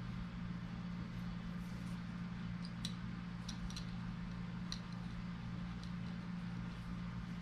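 Steady low machine hum, with a few faint light clicks about three to five seconds in.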